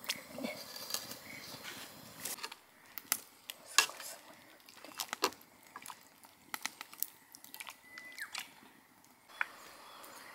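Sharp, irregular clicks and taps from cooking at a wood-fired stove, with long chopsticks working in an aluminium pot of boiling water and the firewood crackling beneath; the loudest click comes about four seconds in.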